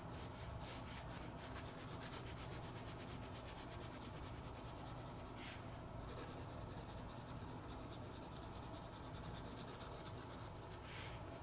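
Soft graphite pencil rubbing on sketchbook paper in quick, short back-and-forth strokes, shading a dark area of the drawing. Faint and continuous, with a slightly louder stretch about halfway through.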